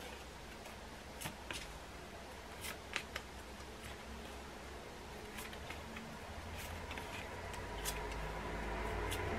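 Paper flashcards flicked one by one from the front of a hand-held pack to the back, giving faint, irregular clicks and rustles. A low rumble builds over the last few seconds.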